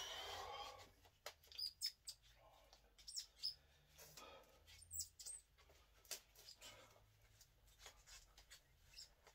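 Strained breathing and grunting from a man bending a pre-kinked 6-inch grade 8.8 steel bolt by hand, starting with a forceful exhale, with scattered sharp clicks and short high squeaks from the effort and the hand wraps.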